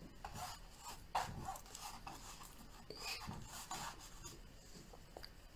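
Flat bristle brush dragging oil paint across a canvas in several short, faint scraping strokes.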